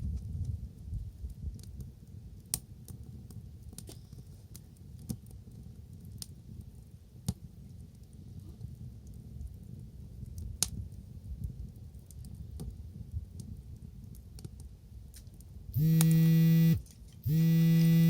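Wood bonfire crackling: scattered sharp pops over a low rumble. Near the end come two loud held tones, each about a second long, with a short gap between them.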